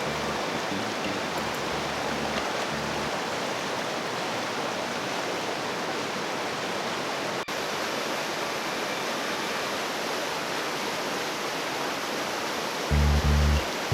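Tongue River rushing through the canyon: a steady rush of flowing water, broken by a momentary dropout about halfway through. Low bass notes of background music sit under it for the first few seconds and come back louder about a second before the end.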